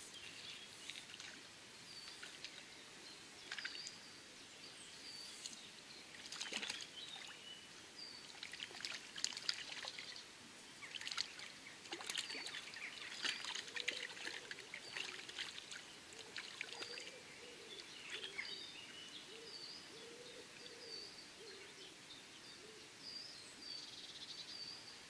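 Birds singing over the trickle of a river, with a low repeated bird call from about the middle on. In the middle there is a stretch of sharp, irregular splashy noises.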